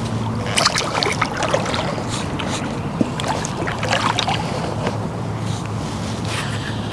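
Steady low hum of a fishing boat's motor, with scattered clicks and knocks over it.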